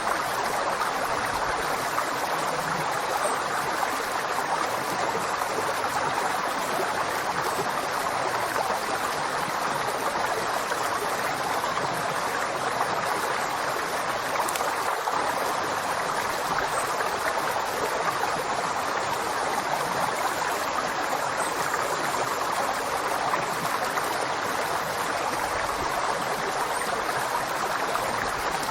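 River water flowing steadily, a continuous even rush of running water.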